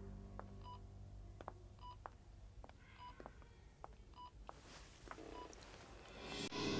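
Bedside patient monitor beeping steadily, one short high beep about once a second, with faint soft knocks between the beeps. A louder sound swells in near the end.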